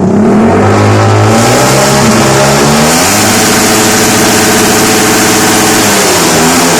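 Very loud motorcycle engine through an aftermarket exhaust pipe, revved up over about two seconds, held at high revs for about three seconds, then let back down near the end.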